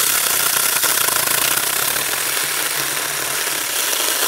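Tomyvic 6-inch battery-powered mini chainsaw running at a steady level while its chain cuts through a thin dead log.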